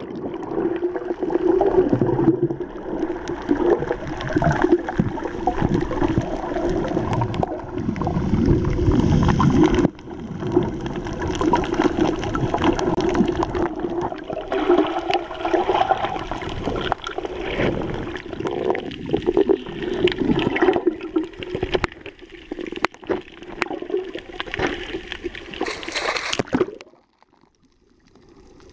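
Muffled water sloshing and gurgling picked up underwater by an action camera in its waterproof housing, over a steady low hum. It drops almost to silence for a moment near the end.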